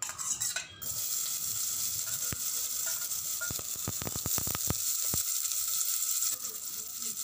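Finely chopped onion dropped into hot oil in a steel pot, sizzling steadily from about a second in. In the middle, a quick run of light clicks from a steel spoon against the steel plate and pot as the onion is scraped in.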